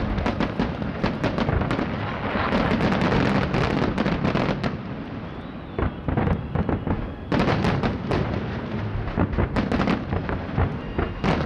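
Fireworks display: aerial shells bursting in quick succession, many overlapping bangs, thinning out about halfway through, then building again into a dense run of bangs.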